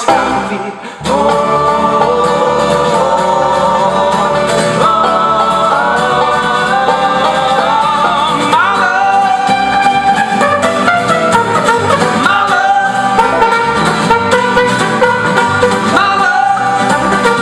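Live acoustic folk band playing an instrumental passage with banjo and guitar under a gliding lead melody, after a brief break in the music about a second in.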